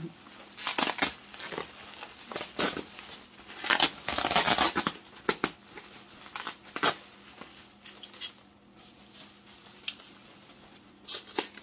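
Packing material being handled while glass pieces are unwrapped: irregular bursts of crinkling and rustling through the first seven seconds or so, then fainter handling.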